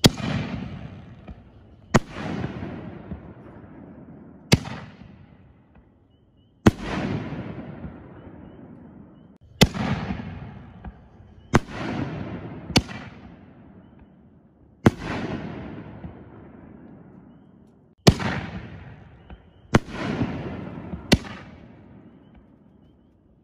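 5-inch canister firework shells fired from a mortar one after another. The launch thumps and aerial burst booms make about eleven sharp reports, spaced roughly two seconds apart, each trailing off in a long rolling echo.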